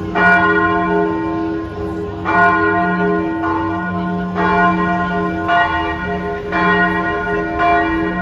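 A church bell tolling, struck about once a second, with each stroke ringing on into the next.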